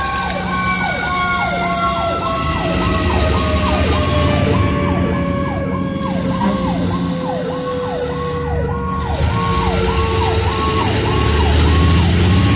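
Fire engine sirens on an emergency response. One siren sweeps up and down rapidly, about twice a second. A second long siren tone falls slowly and steadily in pitch, like a mechanical siren winding down. A low drone underneath swells at times.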